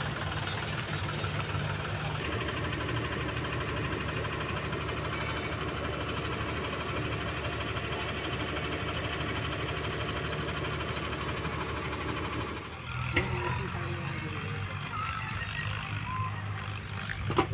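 Tata Prima tipper truck's diesel engine idling steadily. The hum breaks off briefly about 13 seconds in and then carries on.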